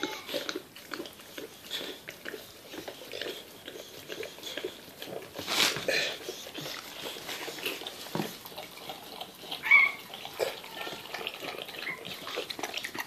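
Boxer mother licking and mouthing a newborn puppy, making quick, repeated wet smacking sounds. A short high squeak comes just before the end.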